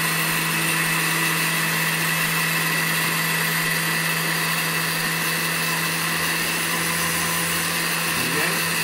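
Countertop blender running steadily on its lowest speed, churning a thick egg-and-parmesan Caesar dressing base: an even motor hum with a high whir that does not change.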